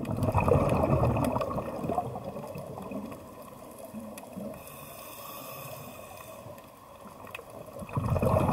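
Sound of moving water, loudest in the first couple of seconds, easing off, then swelling again near the end.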